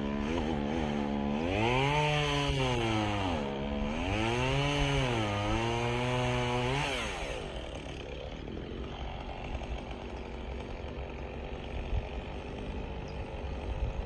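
Two-stroke chainsaw working high up a burnt ponderosa pine trunk, heard from the ground far below. Its engine note rises and falls back twice as it works through the wood. About seven seconds in the note fades out, leaving a quieter steady rushing sound.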